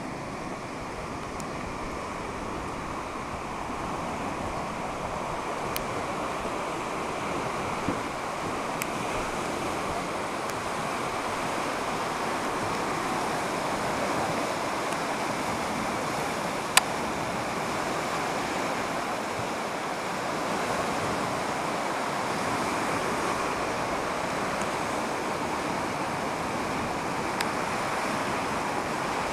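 Fast, muddy floodwater of a river in spate rushing past in a steady roar, with a few sharp clicks, the loudest about two-thirds of the way through.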